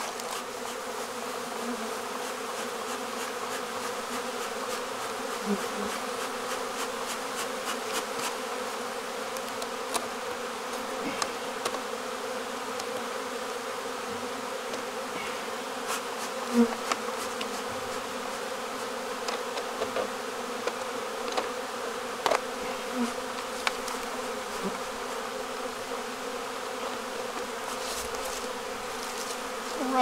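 Steady buzz of many honeybees flying around open hives, the agitated air of a robbing situation starting in the apiary. Single bees buzz close past now and then, and there are a few light knocks.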